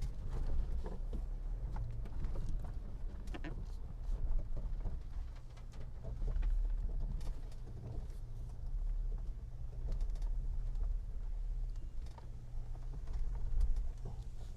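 Mitsubishi Montero V43's 3.0-litre 24-valve engine running at low revs as the SUV crawls over rough unpaved ground, a steady low rumble with a few faint clicks. No clunks or rattles stand out from the chassis, which the driver takes as a sign it is sound.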